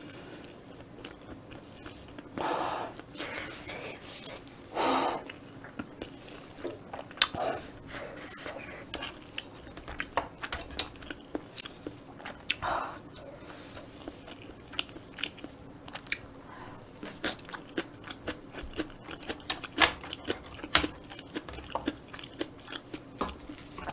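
Close-miked chewing of a mouthful of kimchi fried rice: a steady run of wet mouth clicks and smacks, growing denser partway through, with a few longer, louder mouth sounds in between.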